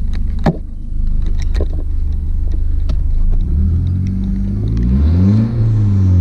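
Volkswagen Jetta's turbocharged engine, freshly flashed with a stage two tune, idling steadily, then revved up and back down a little past halfway. A few sharp clicks sound in the first two seconds.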